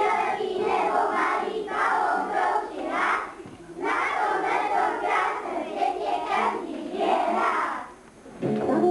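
A group of children's voices in unison, in phrases broken by short pauses. Instrumental music starts near the end.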